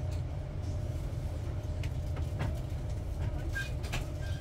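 Cabin noise inside a Southeastern Class 395 Javelin electric train: a steady low rumble with a faint steady hum and a few light clicks.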